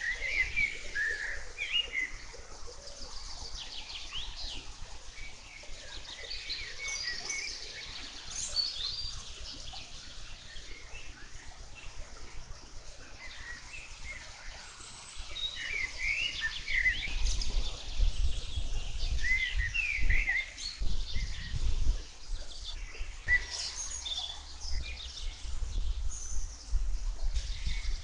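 Several songbirds chirping and singing at once in a meadow, many short overlapping calls and trills. About halfway through an irregular low rumble comes in and grows louder.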